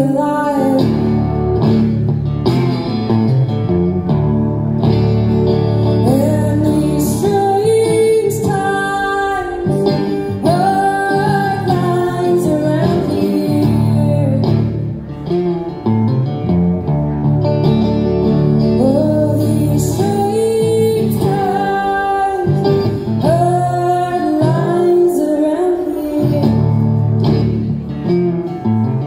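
A woman singing a song live, accompanying herself on a resonator guitar.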